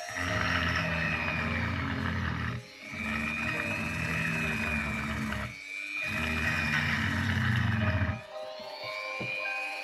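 Handheld electric rotary tool spinning a small bit and grinding into a wet igneous rock: a steady motor whine with a grinding rasp. The sound eases off briefly twice, then turns quieter and thinner about eight seconds in.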